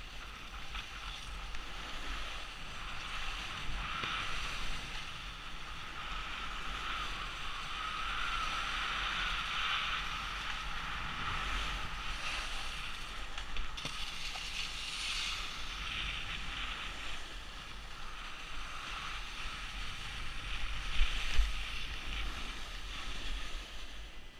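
Snowboard sliding over hard, icy snow: a steady scraping hiss that rises and falls with the turns, with wind rushing over a helmet-mounted microphone. A few sharper scrapes stand out a little after 20 seconds in.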